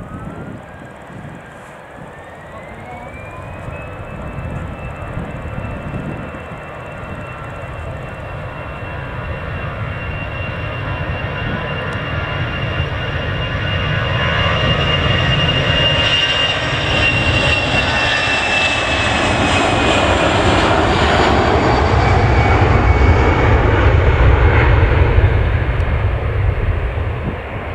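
Airbus A330-243 jet airliner on final approach, its Rolls-Royce Trent 700 turbofans running with a high whine over a low rumble. The whine rises in pitch over the first few seconds, then holds steady and sags slightly late on. The sound grows steadily louder as the plane nears, peaks near the end, then drops off.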